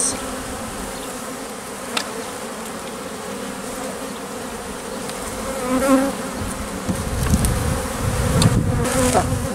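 Honeybees buzzing steadily as a hive's frames are handled, a sharp click about two seconds in, and a low rumble through the last few seconds.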